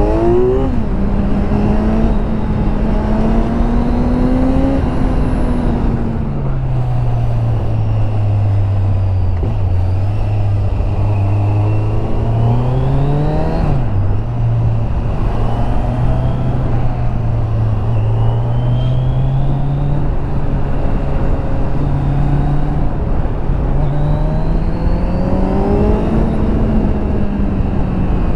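Kawasaki Z900's inline-four engine through its stock exhaust, heard from on board while riding. Its pitch climbs and falls again and again as the rider opens and closes the throttle, dropping sharply about 14 seconds in, over a steady rush of wind noise.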